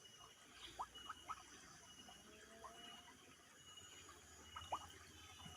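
Near quiet, with a handful of faint, short chirping calls from a small animal or bird and a faint, broken high-pitched tone in the background.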